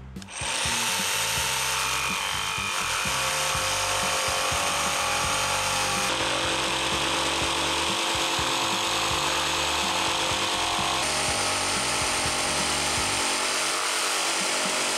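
Bosch GST18V-LI cordless jigsaw switched on and sawing through wood at full speed, a steady buzz starting about half a second in.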